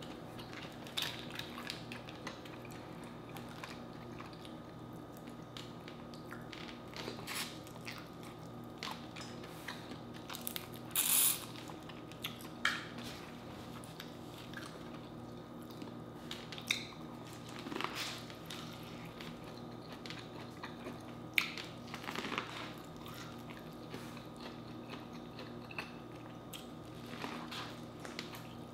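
Close-miked eating sounds from someone working through a seafood boil: chewing and biting, with scattered short clicks and smacks over a steady low hum, and one brief louder burst about eleven seconds in.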